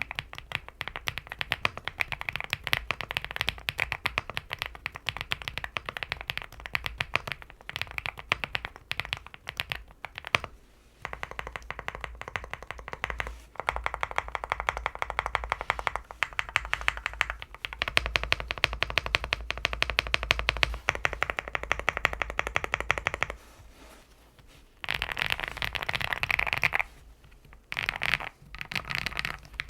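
Fast typing on a Leobog Hi75 mechanical keyboard fitted with factory-lubed Owlab London Fog linear switches: a dense run of rapid keystroke clacks, broken by a few brief pauses.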